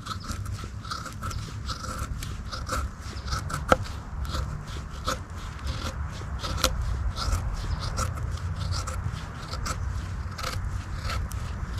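Serrated edge of a Gerber LMF II knife shaving curls down a stick of wood to make feather sticks, in quick, repeated scraping strokes of about two to three a second.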